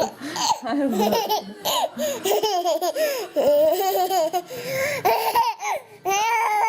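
A baby laughing in a run of short, high-pitched giggles and squeals. Near the end it breaks into one long, held wail.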